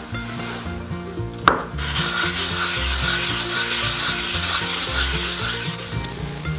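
A small metal piece is set down on a sheet of sandpaper with a click about a second and a half in, then scrubbed back and forth on it in a steady rasping hiss that fades near the end. Background music plays underneath.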